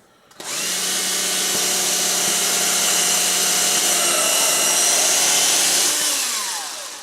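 Vintage Milwaukee 12-volt cordless drill running on its high-speed setting: the motor whines steadily, then winds down with falling pitch near the end as the trigger is released.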